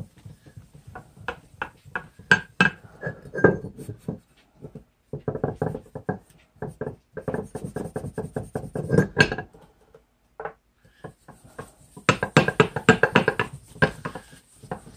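Steel wool loaded with metal polish scrubbed rapidly back and forth over a rusted steel hatchet head, polishing it toward bare shiny metal. The scrubbing comes in spells of quick strokes broken by short pauses, and the last spell is the loudest.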